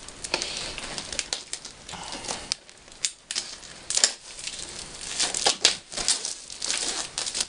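Blu-ray cases being unpacked by hand: crinkling plastic packaging and irregular sharp clicks of plastic cases being handled.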